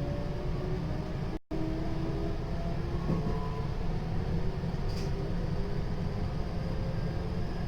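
JR 223 series 0-subseries EMU's Toshiba GTO-VVVF inverter and traction motors whining in several tones that slowly rise in pitch as the train accelerates, over a steady rumble of wheels on rail. The sound cuts out briefly about a second and a half in, and there is a short click about five seconds in.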